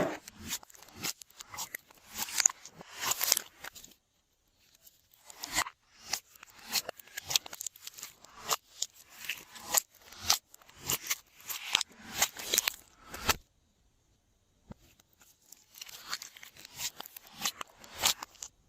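Glossy slime being kneaded and stretched by hand: repeated sticky crackling and tearing sounds in quick runs, which stop twice for a few seconds.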